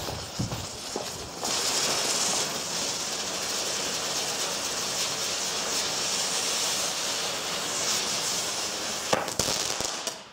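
A Keller UFO ground spinner firework. After a short fuse burn it hisses steadily for about seven seconds as it spins spraying silver sparks. Near the end it finishes in a burst of very loud crackling.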